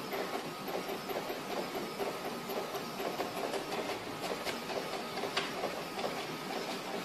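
A small machine running steadily with a fast, even mechanical clatter.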